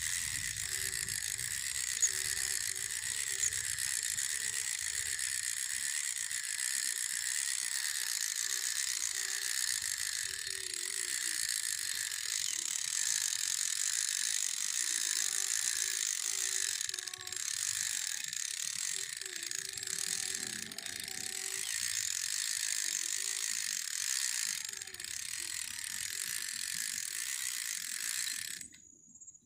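Cicada calling: a loud, steady, shrill buzz that wavers slowly and cuts off suddenly near the end.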